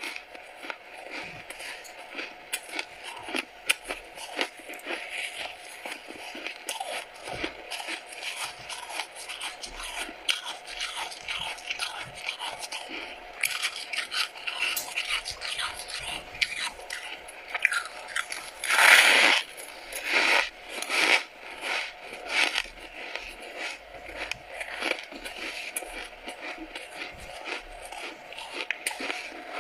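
Freezer frost being bitten and chewed close to the microphone: a dense run of crackling crunches of packed white ice, with the loudest bite about two-thirds of the way through.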